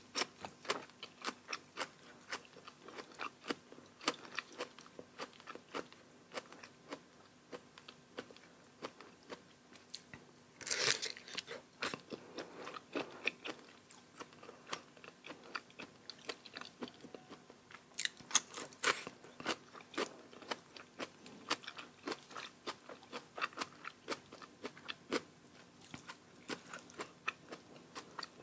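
Close-miked chewing and crunching of papaya salad with crisp raw vegetables: a steady run of short crunches a few times a second, louder for a moment about 11 s in and again about 18 s in.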